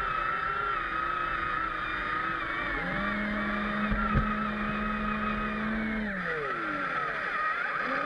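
Electric motors and speed controllers of a remote-control Bobcat T190 skid-steer model whining as it drives. A second, lower motor tone comes in about three seconds in, holds steady, then drops in pitch and stops after six seconds, with a single knock near the four-second mark.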